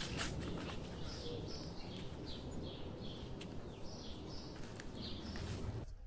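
Small birds chirping: runs of short, high notes repeated several times a second, over outdoor background noise with a few footsteps.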